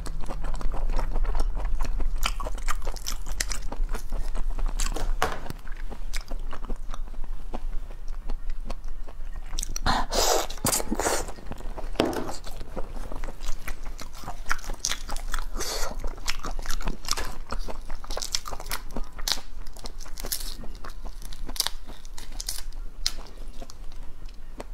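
Close-up eating sounds from a cooked spiny lobster: shell cracking and crunching under the teeth, chewing, and sucking at the leg pieces, as many sharp clicks with a few longer, louder bursts about ten seconds in.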